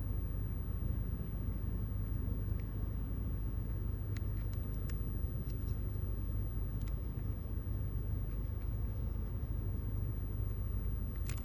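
Steady low rumble, with a few light clicks of small parts being handled, a little after the start, about two-thirds through and near the end.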